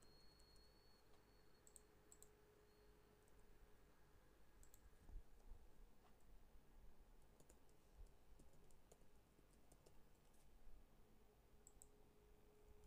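Faint, scattered clicks of computer keyboard typing and mouse clicks over near-silent room tone.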